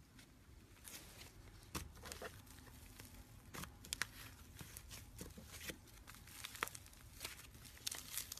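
Slime being worked by hand: faint, irregular crackles and pops, a few sharper ones near the end.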